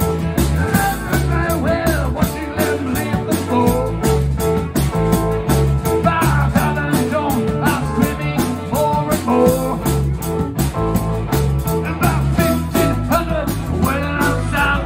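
Live rock band playing: electric guitar over bass and a drum kit keeping a steady beat.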